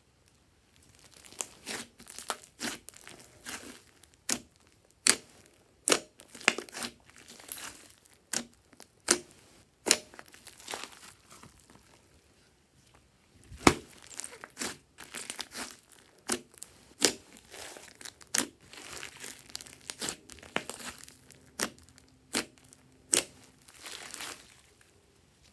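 Hands squishing and stretching a thick slime mixed with small foam beads, making irregular sharp pops, clicks and sticky crackles as it is pulled and torn. There is a short lull near the middle, followed by the loudest pop.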